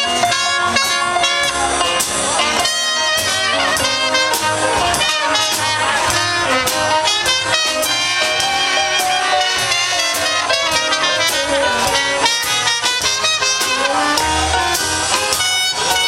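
Jazz music with brass instruments such as saxophone and trumpet, over a steady beat.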